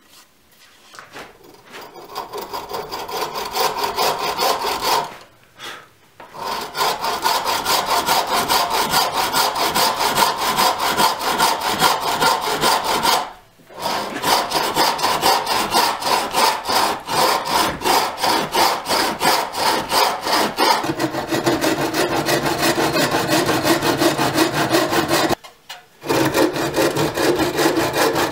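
Bow saw cutting into a green birch blank held in a vise, steady rhythmic back-and-forth strokes that start about a second in. The sawing stops briefly three times and resumes, and the pitch of the strokes drops lower in the last part.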